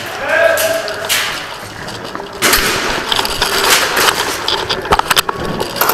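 Rustling and scuffing of a player's gear and footsteps while moving quickly, growing louder about halfway through, with a few sharp clicks near the end.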